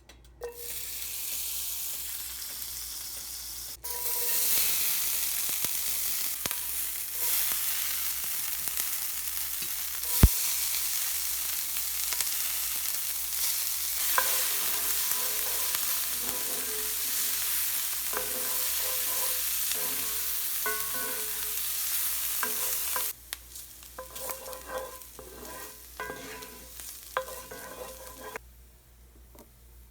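Sloppy joe filling sizzling in a frying pan as it is stirred, with short scrapes and clicks of the utensil against the pan. The sizzling cuts off about three-quarters of the way through, leaving a few quieter clinks.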